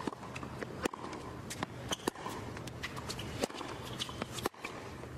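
Tennis rally on a hard court: sharp racket-on-ball hits, several in a row, the strongest roughly a second apart, over a steady background hum.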